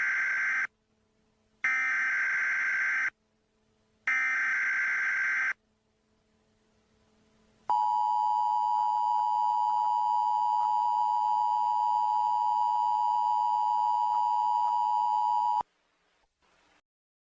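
Emergency Alert System SAME header: three bursts of shrill data tones, each about a second and a half long with short gaps between. After a pause of about two seconds comes the steady two-tone EAS attention signal, held for about eight seconds and cut off abruptly.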